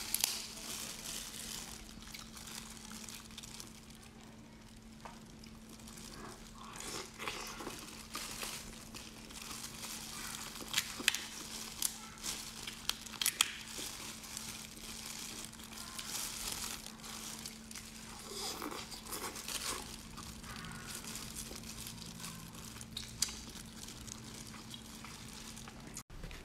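Close-up eating of cooked prawns: crackling shells, crinkling plastic gloves and crunchy chewing as short, scattered clicks, over a faint steady hum.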